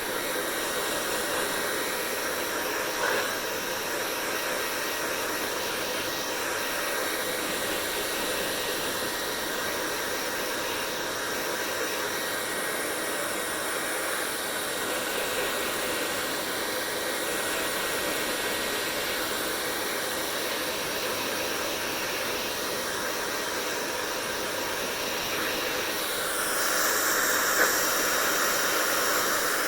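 Hair dryer blowing steadily: rushing air with a faint high motor whine. Near the end it grows louder and brighter for a few seconds.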